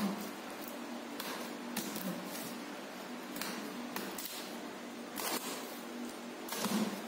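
Packing tape being slit and torn along the seam of a cardboard carton: a handful of short, hissy rips and scrapes, over a steady low hum.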